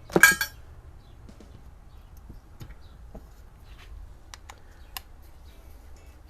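A short, loud metallic clatter about a quarter second in, then scattered light clicks and taps as small metal parts are handled.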